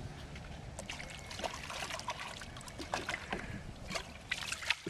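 Water trickling and splashing in short, irregular spatters.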